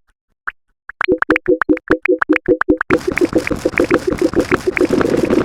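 A rapid run of short electronic sound-effect clips. First come a few isolated clicks, then short pitched blips at about five a second. About three seconds in they turn into a faster, denser and noisier stream of clicks and tones.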